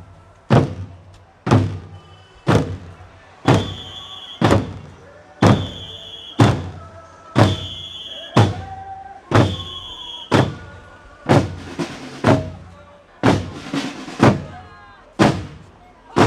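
A marching drum struck steadily about once a second. From about three seconds in, a high held tone sounds on every second beat for several seconds, with other short pitched sounds between the strikes.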